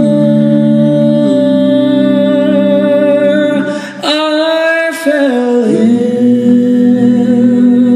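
Five-man a cappella group singing live into microphones, holding sustained close-harmony chords over a deep bass voice. About four seconds in the chord breaks off and the bass drops out, then a new chord swells in and the bass returns.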